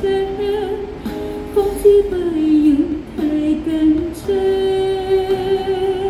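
A woman singing a slow pop ballad into a handheld microphone; about two-thirds of the way in she holds one long note with vibrato.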